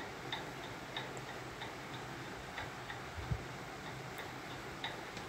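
Herbal decoction heating in a steel saucepan on a gas burner as it comes up to the boil: faint, irregular ticks and pops from small bubbles forming, over a soft steady hiss. A single low knock about three seconds in.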